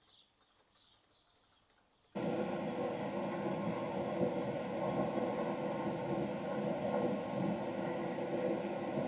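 Near silence, then about two seconds in a steady, even rushing hum with a few fixed tones starts abruptly and runs on unchanged.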